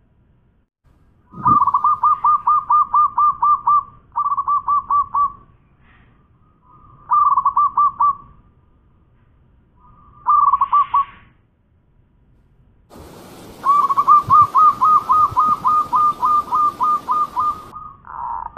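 Zebra dove (perkutut) singing: five phrases of rapid staccato coos on one steady pitch, the longest near the end. A steady hiss sits under the last few seconds.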